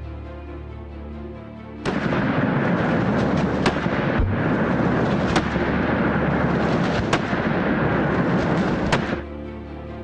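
Background music, then from about two seconds in a loud, dense crackle of rapid gunfire with sharper single shots about every second and a half; it cuts off abruptly near the end and the music returns.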